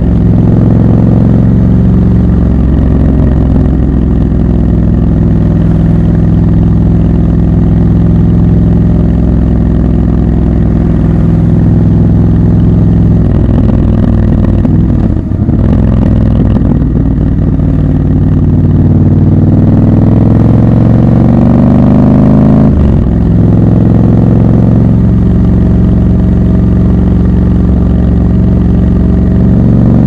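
Triumph Scrambler 1200 XC's 1200 cc parallel-twin engine running while the bike rides through traffic. The engine note rises under throttle in two stretches, from about 18 to 22 seconds and again from about 23 to 25 seconds. It dips briefly about 15 seconds in and breaks off at an upshift about 23 seconds in.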